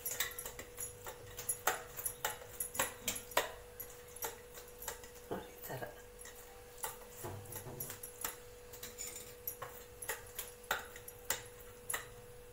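Hand patting and shaping a ball of jowar (sorghum) mudde on a steel plate: a string of irregular soft slaps and light taps, two or three a second.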